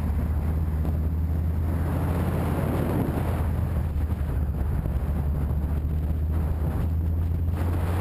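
Motorcycle engine running at a steady cruise, a constant low drone, with wind rushing over the microphone.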